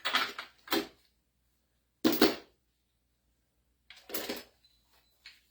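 Steel sockets clinking and clattering as they are picked up and sorted through in a socket set, in about five short bursts with pauses between.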